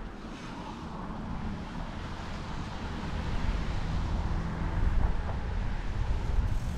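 Steady rushing rumble of wind and road noise from a moving bicycle, picked up by a camera mounted on the bike. It grows louder about halfway through.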